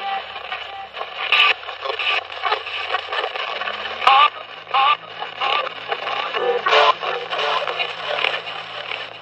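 Spirit box sweeping through radio stations, played through a speaker box: a rapid, choppy stream of static with broken snippets of voices and tones cutting in and out every fraction of a second. Ghost hunters listen in this noise for words from spirits.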